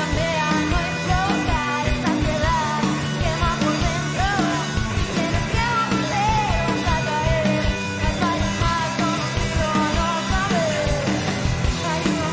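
Rock band playing live: steady drum beat and bass under a lead melody that bends up and down in pitch.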